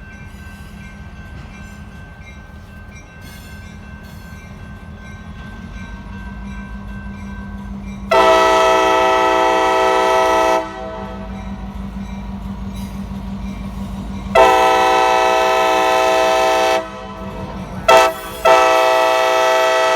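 Diesel locomotive's air horn sounding the grade-crossing signal: two long blasts, a short one and a final long one, a chord of several tones. Under it, the locomotive's low engine rumble grows steadily louder as it approaches.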